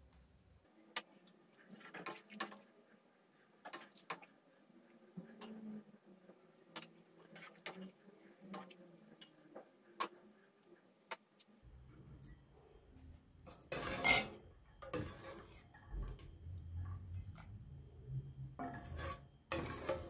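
Metal ladle clinking against an enamel pot and a glass dessert cup as thick rice pudding is ladled out: scattered sharp clinks at first, then a few louder scrapes in the second half.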